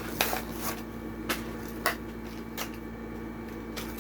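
Plastic blister pack and card backing of a die-cast toy car crackling and snapping as it is pried open by hand, in a series of separate sharp clicks.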